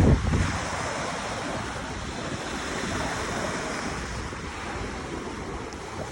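Black Sea waves breaking and washing steadily, with wind rumbling on the microphone at the start.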